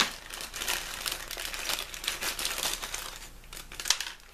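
Small clear plastic bag of parts crinkling as it is handled, quieter after about three seconds, with one sharp click near the end.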